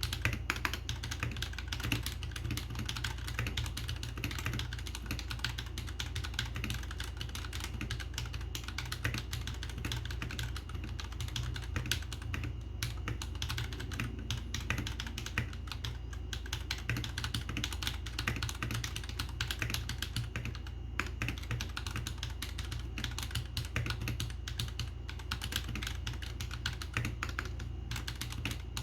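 Continuous fast typing on a Royal Kludge RK G68 mechanical keyboard with red (linear) switches: a dense, steady stream of key clicks and clacks.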